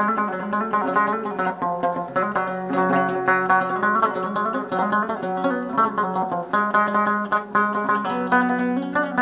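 Rabab played in a quick run of plucked notes, ringing over sustained low tones.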